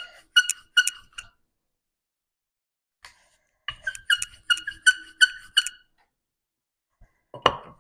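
A rolling pin rolling out a small round of poori dough, giving short, pitched squeaks with each back-and-forth stroke: three in quick succession, then a steady run of about eight a little after halfway. A single louder knock comes near the end.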